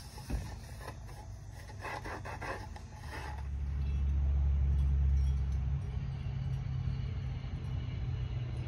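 A wooden cutting board handled over a plastic tub: a single knock, then a couple of seconds of scraping and clicking. After that a low rumble swells up, peaks and settles into a steady low hum.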